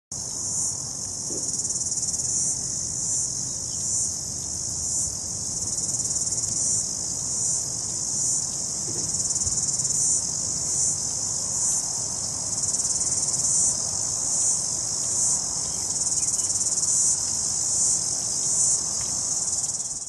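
A chorus of cicadas: a dense, steady, high-pitched shrilling that swells in rough pulses about once or twice a second.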